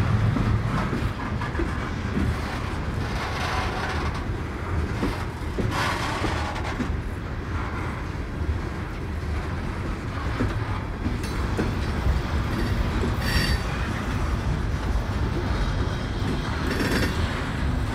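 Loaded coal hopper cars rolling past on the rails: a steady low rumble with wheels clicking over the rail joints and a short wheel squeal about two-thirds of the way through.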